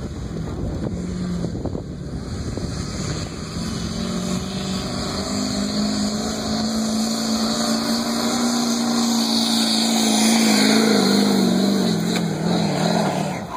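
2013 LML Duramax 6.6-litre turbodiesel V8 in a tuned Chevy pickup working hard as the truck drags a weight-transfer pulling sled. A steady drone grows louder as the truck comes closer, then its pitch wavers and sags in the last couple of seconds as the sled's load bogs it down.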